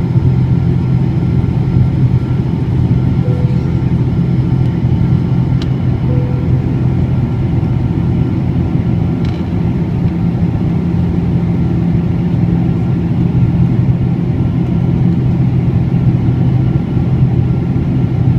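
Boeing 777-200 jet engines: a loud, steady rumble with a constant low hum that holds level throughout.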